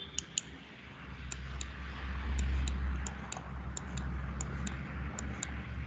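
Computer mouse clicking as points are picked in a drawing program: about seven pairs of sharp clicks, each pair a quarter second apart, over a low background rumble.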